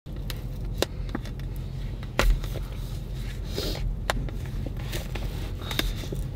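Hands working a fabric bedding item: soft rustling and scraping with a few sharp clicks, over a low steady hum.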